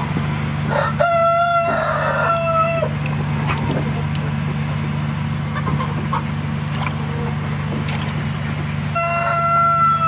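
A rooster crowing twice: a long crow about a second in and a shorter one near the end, over a steady low hum.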